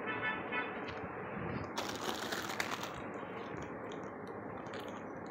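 Plastic wrapping of a snack multipack crinkling as it is handled, loudest for about a second near the middle, over a steady background hiss of store ambience.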